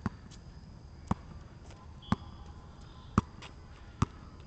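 Basketball dribbled on an asphalt outdoor court: about five sharp bounces, roughly a second apart.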